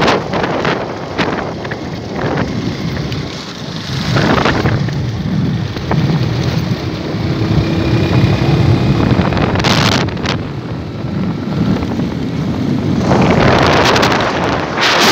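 Wind buffeting the microphone of a moving motorcycle, with the motorcycle's engine running underneath, and a couple of sharp knocks about two-thirds through and near the end.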